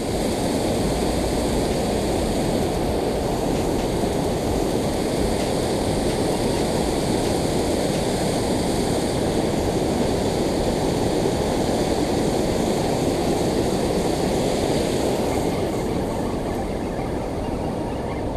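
Water pouring over a dam spillway: a steady, muffled rushing roar that eases a little near the end.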